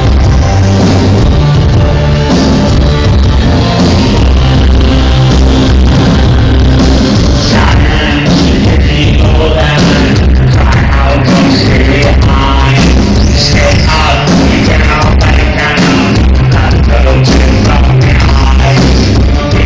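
A live band playing loud electro-industrial music with heavy pulsing bass, recorded on a cell phone in a concert hall.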